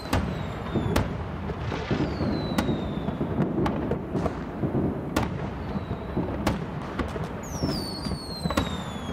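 Fireworks: sharp bangs about once a second over a continuous low rumble of bursts, with several high whistles falling in pitch.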